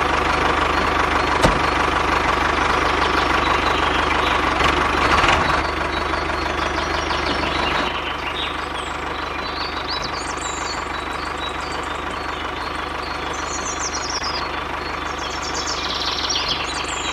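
Engine-like running sound of a miniature DIY tractor, steady throughout and dropping a little in level about eight seconds in.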